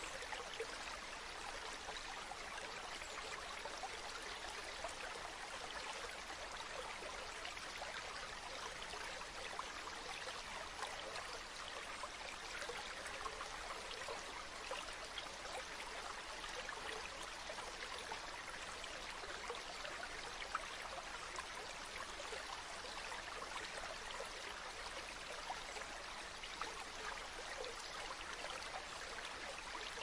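Small stream trickling over rocks in a little cascade: a steady rush of running water with scattered small splashes and drips.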